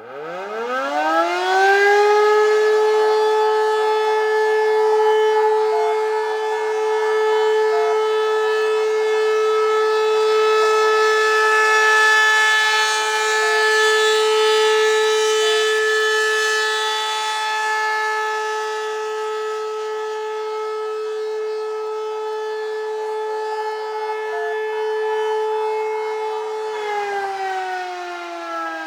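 P-10 air raid siren winding up within about two seconds to a loud, steady wail, holding one pitch, then beginning to wind down with a falling pitch near the end.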